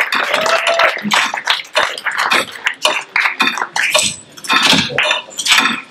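Audience voices murmuring and calling out, mixed with scattered, irregular sharp clicks and knocks.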